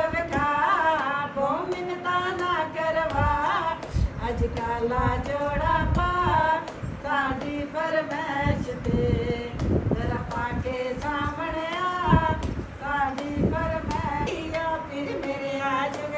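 Women singing a folk song without instruments, in long, held, sliding notes.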